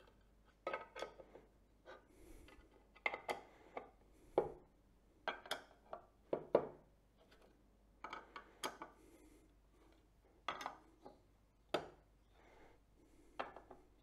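Small metal screws being undone with a hand screwdriver from a filter wheel's back plate and laid down on a wooden table: light clicks and taps of metal on metal and on wood, coming in short clusters every second or so.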